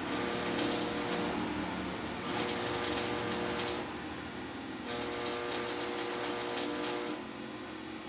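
Electric arc welding on steel rebar: the arc crackles in three runs of one to two seconds each, with a steady hum under each run and short pauses between.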